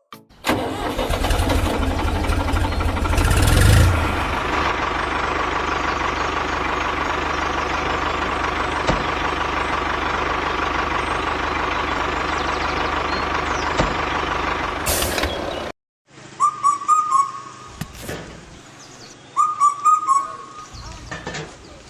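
Truck engine running steadily, swelling louder about three and a half seconds in, with a short air hiss near the end before it cuts off abruptly.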